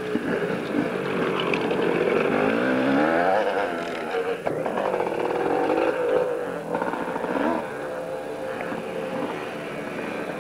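Several 250 cc two-stroke motocross motorcycles revving, their engine notes rising and falling over one another as riders accelerate and back off.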